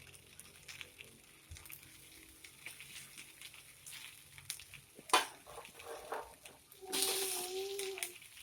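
Food frying in hot oil in a pan, with irregular crackles and pops and one sharp, loud pop about five seconds in. Near the end a louder hissing sound with a steady pitch lasts about a second.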